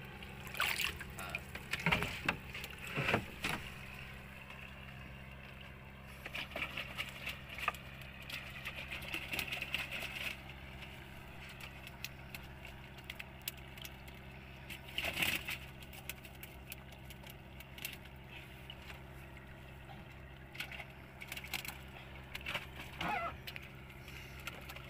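Steady low hum of an idling boat engine, with intermittent knocks, rattles and splashes as fish are worked out of a wire-mesh fish trap by hand. The loudest knocks come a couple of seconds in and again about halfway through.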